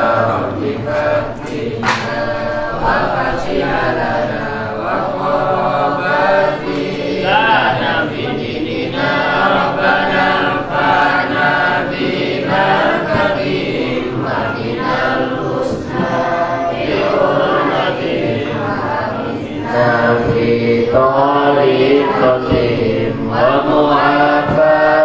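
Several voices chanting an Arabic closing prayer together in a slow, melodic recitation, led by one man's voice through a headset microphone.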